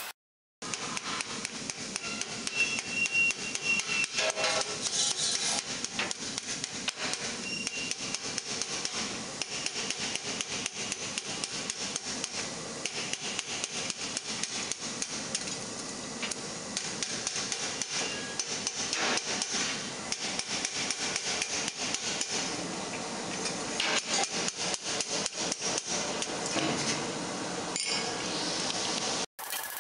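Hand hammer striking hot steel plate over a stake in quick, steady blows, forging the flared hourglass cuff of a gauntlet.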